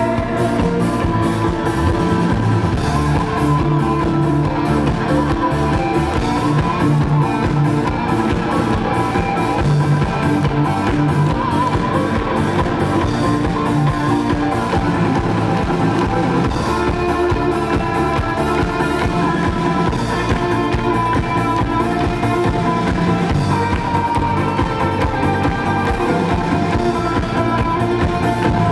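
Live rock band playing an instrumental passage: guitars over a steady drum beat with a regularly ticking cymbal.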